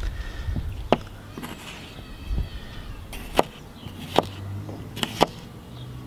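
A Fallkniven Erna SK18 kitchen knife slicing a tomato thin, its edge tapping through onto a plastic cutting board with each slice: about five sharp taps at uneven intervals.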